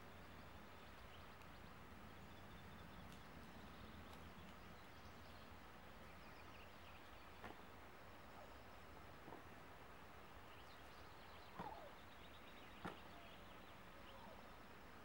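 Near silence: faint outdoor ambience with a few brief, faint calls or clicks, the clearest two in the later part.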